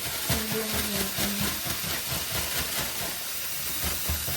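Kitchen tap running into the sink as water goes into a bowl of raw shrimp to rinse them, a steady rush of water with a few light knocks and clatters.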